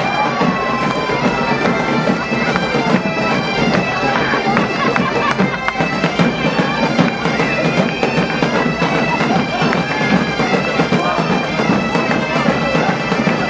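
A large band of gaitas-de-foles (Portuguese/Galician bagpipes) playing a tune in unison over their steady drones, with snare and bass drums beating along.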